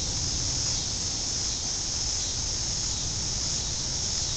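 Wind rumbling on the microphone ahead of a thunderstorm, with a steady high-pitched hiss over it.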